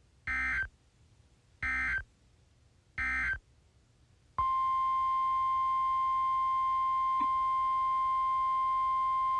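Three short bursts of digital alert data, the screeching Specific Area Message Encoding end-of-message code, about a second and a half apart. About four and a half seconds in, a single steady alert tone near 1 kHz starts: the NOAA Weather Radio 1050 Hz warning alarm tone that opens the next warning.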